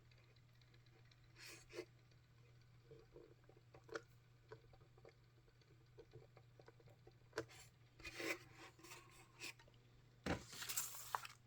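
Faint handling noises from a radio-controlled wall clock's plastic case: scattered light clicks and taps with short bouts of rubbing and scraping, busier and louder near the end.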